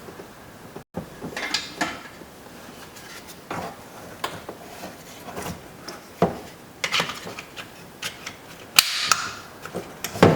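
Screwdriver driving screws into a plastic car door panel: scattered clicks, knocks and rattles of the tool, screws and trim.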